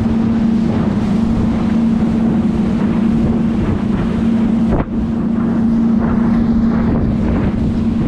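Boat's outboard motor running steadily at low speed, with wind buffeting the microphone. The sound briefly drops out just under five seconds in.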